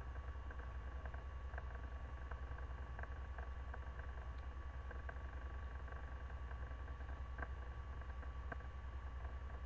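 Faint, scattered small clicks and taps of hands working inside a laptop, seating the video cable connector, over a steady low hum.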